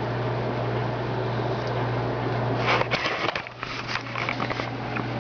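A steady low hum, like a fan or motor, with short rustling and crackling about three to four and a half seconds in as the stripped Romex wires and their plastic casing are handled.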